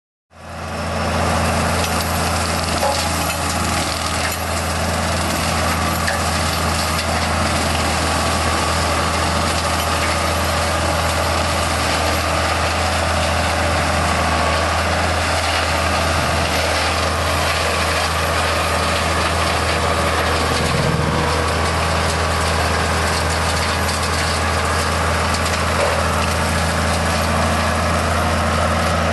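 Tractor engine running steadily under load, driving a Seppi mulcher as it shreds scrub and small trees, a dense, continuous machine noise with a strong low hum. It fades in over the first second and then holds level.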